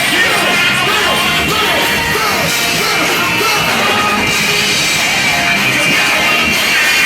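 Loud live hip-hop/rock concert music over a PA, with yelled and sung vocals.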